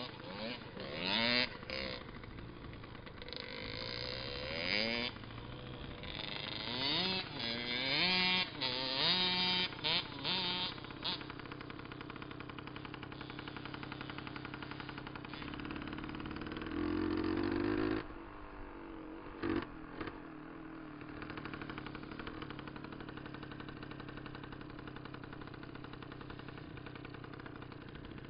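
Dirt bike engines revving up and down, their pitch rising and falling again and again for the first ten seconds or so. A louder stretch about sixteen seconds in stops suddenly, and from then on an engine runs steadily at low revs, close to idle.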